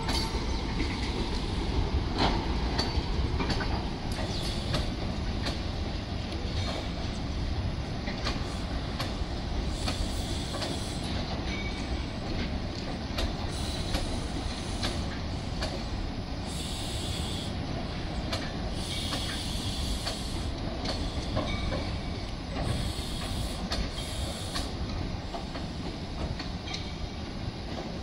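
Container freight wagons rolling past on their bogies: a steady rumble of wheels on rail with a run of clicks over the rail joints. Short spells of a high-pitched hiss come through a few times.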